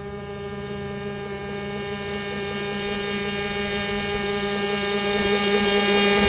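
O.S. .25 two-stroke glow engine of a radio-controlled airboat running at a steady high pitch, growing steadily louder as the boat approaches.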